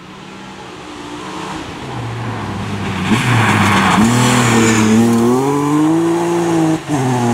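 BMW M3 rally car approaching on a gravel stage and passing close by, its engine note revving up and down and growing steadily louder. Gravel sprays from the tyres with a hiss in the middle as the car slides through the bend. Near the end the engine note breaks off briefly, then picks up again.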